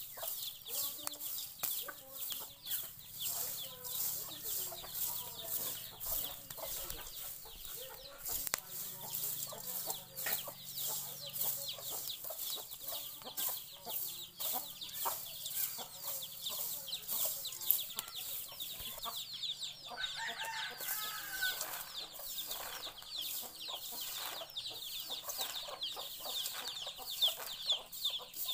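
A bundle of thin sticks stirring and sweeping popcorn through hot sand in a metal wok: a dense run of short clicks and scrapes. Hens cluck in the background.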